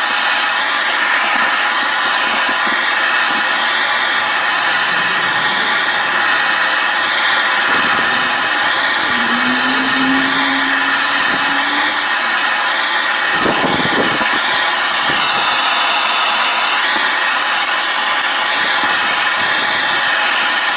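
Handheld gas blowtorch burning with a steady loud hiss while it heats a steel gun barrel for oil bluing. A short low hum comes in midway and a brief knock follows soon after.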